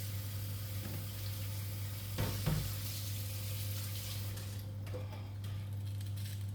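Kitchen sounds: a steady hiss, like running water or something frying, over a steady low hum, with a couple of knocks about two seconds in. The hiss drops away a little after four seconds.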